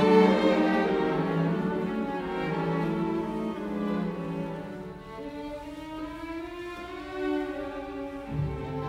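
Background music of bowed strings, violin and cello, playing a slow melody. A steady low hum comes in near the end.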